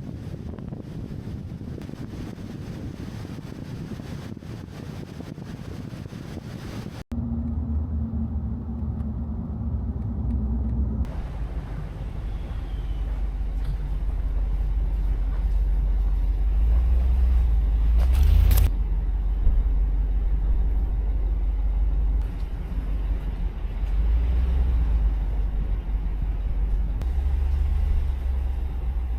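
Car driving on the road: a steady low rumble of engine and tyres that builds after a cut about seven seconds in. Before the cut, an even hiss of wind noise.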